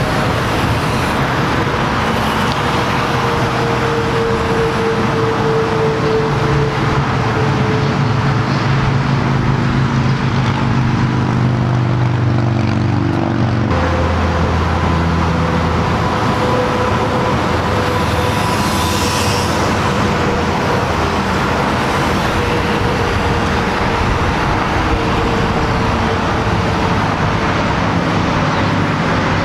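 Steady highway traffic noise, with a heavy vehicle's engine drone sliding down in pitch partway through.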